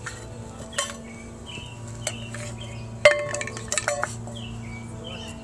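A toddler banging a stainless steel dog water bowl, giving metallic clanks that ring briefly. There is one strike about a second in, a louder one about three seconds in, then a quick run of lighter taps.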